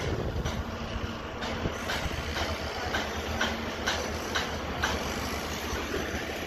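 Construction-site machinery running with a steady low rumble, overlaid by sharp ticks about twice a second.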